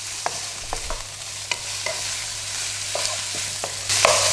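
Sliced beef, garlic and ginger sizzling in oil in a nonstick pan, stirred with a wooden spatula that knocks and scrapes against the pan about eight times. The sizzle gets louder near the end.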